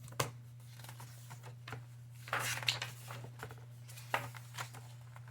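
Paper picture book being handled and its pages turned: a few light clicks and taps, with a louder paper rustle about two and a half seconds in, over a steady low hum.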